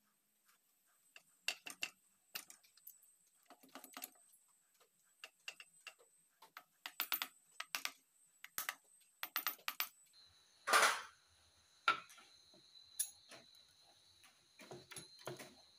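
Irregular light metallic clicks and taps in clusters as parts are fitted by hand onto the crankshaft of a Volkswagen air-cooled engine, with one longer, louder scrape about eleven seconds in.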